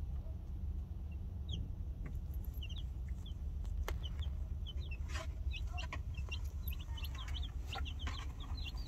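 Baby chicks (Easter Eggers and Barred Plymouth Rocks) peeping in short, high chirps that come more and more often after the first few seconds. Under them runs the steady low rumble of the car on the road.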